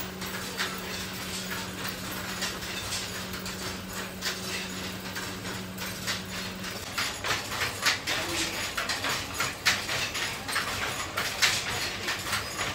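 Wooden handloom clacking in use: irregular sharp knocks of the beater and shuttle, coming faster and louder from about halfway through. A low steady hum underneath stops about halfway through.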